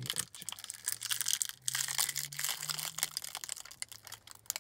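Rustling, crinkling handling noise with many small clicks and scrapes, from a phone being moved about close to its microphone. A faint low hum runs underneath.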